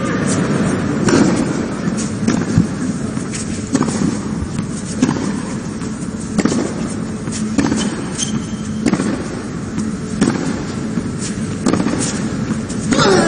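Tennis rally: a ball struck back and forth by rackets, sharp hits about every second and a quarter, over a steady arena background, with a falling cry near the end.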